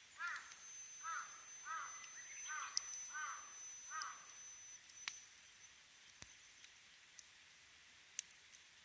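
A bird calls about six times in a quick series during the first four seconds, each call short and arched in pitch, while a campfire crackles with a few sharp pops.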